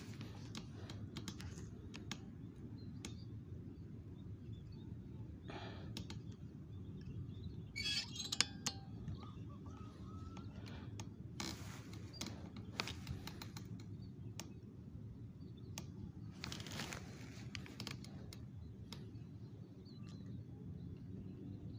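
Handling noise: scattered light clicks and short rustles over a steady low rumble, with the scope-mounted camera and rifle being moved about.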